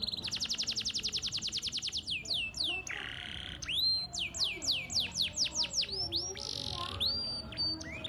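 A canary singing a long, varied song. It opens with a fast trill of about a dozen repeated notes a second, then breaks into slower, swooping downward notes with short buzzy stretches between them.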